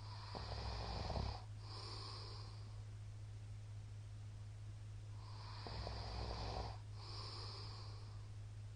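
A middle-aged man snoring in his sleep: two snores on the in-breath about five seconds apart, each followed by a breathy out-breath.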